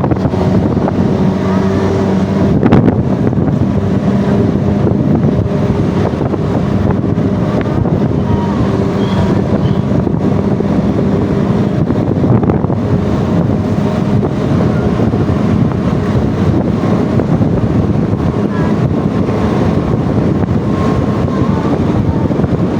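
Off-road vehicle's engine running steadily while driving, with wind buffeting the microphone.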